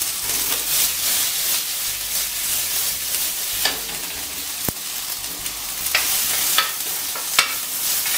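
Onion wedges and tomato sizzling in hot oil in a frying pan, with a few sharp knocks as they are stirred against the pan.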